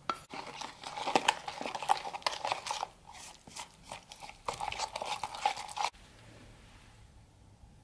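Wooden spatula stirring corn starch and sugar into orange juice in a plastic measuring jug: a dense run of quick scraping, clicking strokes against the jug. The stirring stops sharply about six seconds in, leaving a faint low hum.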